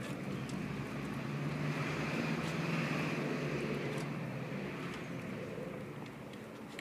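A passing vehicle: a steady rushing noise that swells over the first few seconds and then fades away, with a few faint clicks from a Doberman eating raw chicken out of a steel bowl.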